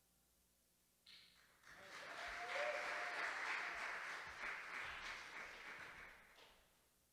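Audience applauding, swelling about two seconds in and dying away shortly before the end.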